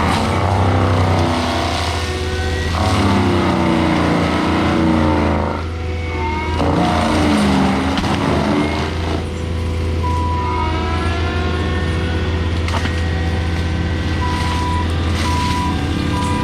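Diesel engine of tracked heavy equipment running steadily with a constant low hum. Squeals and whines rise and fall over it several times, loudest about 3 to 5 s in and 7 to 9 s in, with short high squeaks near the end.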